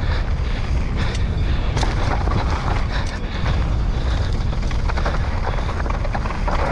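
Downhill mountain bike descending a dirt and gravel trail at speed: wind buffets the camera microphone with a heavy low rumble, over the hiss of tyres on loose ground and scattered sharp clicks and rattles from the bike over bumps.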